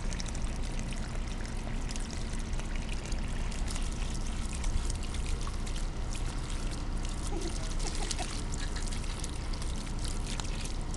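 Water running steadily from the open end of a garden hose, pouring onto a concrete curb and into a puddle, with irregular splashes as a kitten paws at the stream.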